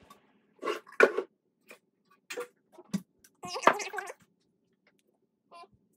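Kitchenware being handled and set down on a stainless steel table: a glass mixing bowl and a plastic measuring jug knocking and clinking in several separate short knocks, some with a brief ring.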